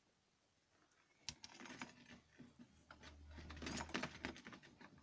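Faint small clicks, rattles and scraping of a coiled steel recoil-starter spring and the chainsaw's plastic starter housing being handled as the spring is forced back into place, starting about a second in.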